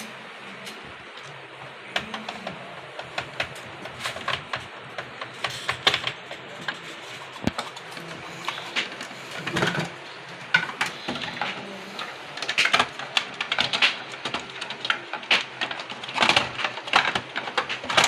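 Plastic casing of an M-Mark MV-410 label printer being handled and closed up: irregular clicks and knocks as the cover is fitted and screws are put back in, getting busier and louder toward the end.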